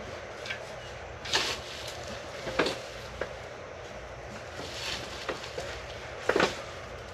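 Black metal garden trellis frame being handled and fitted together: irregular sharp clicks and clanks of metal parts knocking against each other, about seven in all, the loudest a quick pair near the end.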